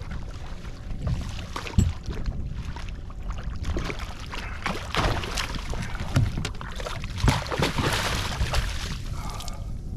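Water splashing and slapping against a small boat's hull, with wind on the microphone and a few sharp knocks.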